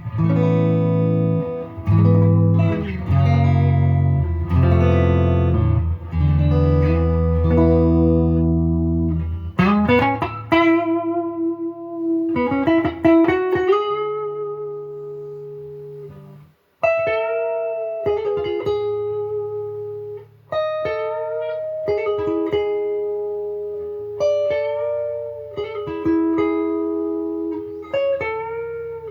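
Gibson Les Paul 50s Standard electric guitar with P-90 pickups, played through an amp with a clean tone: low ringing chords for the first several seconds, then single-note lines and held notes with string bends. The playing stops briefly a little over halfway, then resumes.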